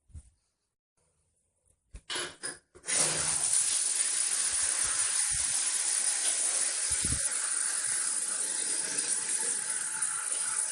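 A few short noises, then a steady, even hiss, like air or spray rushing out, starting about three seconds in.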